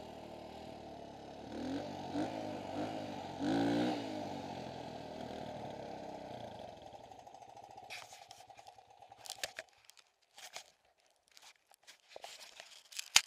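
Dirt bike engine idling with two quick throttle blips in the first four seconds, then dying away about seven seconds in. Afterwards only scattered clicks and knocks, with one sharp click, the loudest sound, at the very end.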